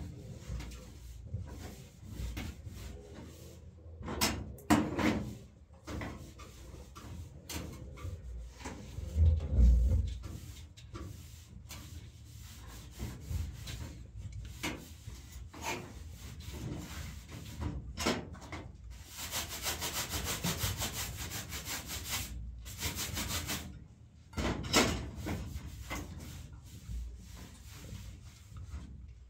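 A cloth is wiped and scrubbed over the enamel top and burners of a gas stove in irregular strokes, with knocks and clinks between them. There is a heavy thud about nine seconds in, and a run of fast scrubbing strokes around twenty seconds in.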